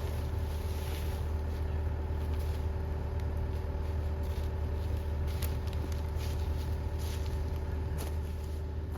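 Case 445 skid steer's diesel engine running steadily under work, with a few sharp clicks and rattles over it.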